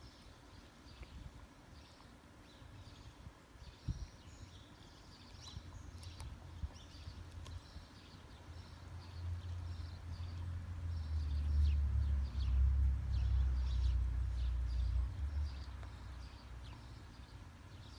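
German Shepherd puppy chewing and gnawing a raw whole chicken, with frequent short high clicks and a sharp knock about four seconds in. A low rumble swells through the middle and is the loudest sound.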